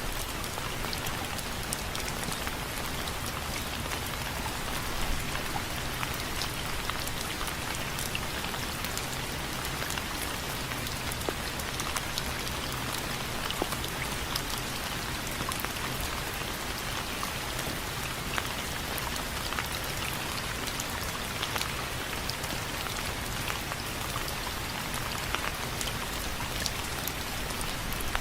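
Steady rain falling on window frames, a constant hiss with many individual drops ticking sharply against the frame.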